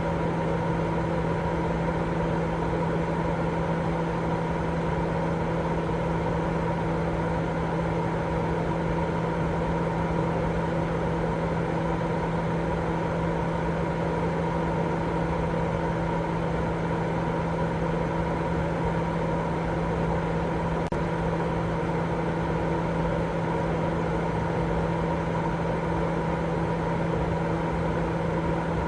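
Continuous baby-sleep white noise: an even, unchanging hiss with a steady low hum running through it, like a motor running.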